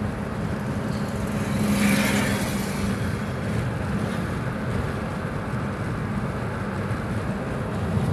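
Steady road and engine noise of a moving vehicle, with a brief louder rush about two seconds in.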